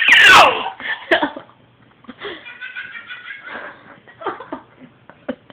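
A voice making a loud, high funny noise that slides down in pitch at the start, followed by soft baby giggles and babbling.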